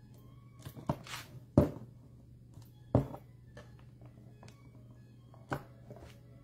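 Sharp knocks and a short scrape of a small hand tool pressing old metal retaining prongs back into the back of a wooden picture frame. The prongs are loose and keep falling out. There are four knocks, the loudest about a second and a half in.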